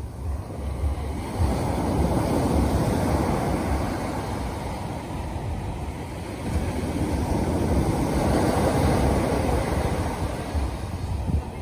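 Small waves breaking and washing up a sandy beach, the surf swelling twice, with wind buffeting the microphone.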